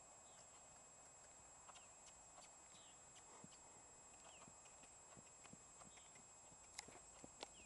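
Faint hoofbeats of a horse trotting on sand footing: soft, scattered clicks over a steady hiss.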